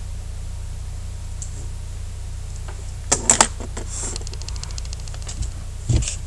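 Clicks and taps at a computer keyboard and mouse: a cluster of sharp clicks about three seconds in, a quick run of fine even ticks after it, and a dull thump near the end, over a steady low hum.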